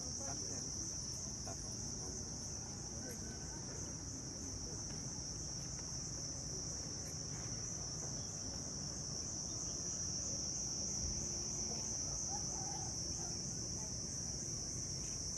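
A steady, unbroken high-pitched insect chorus, over a low background rumble.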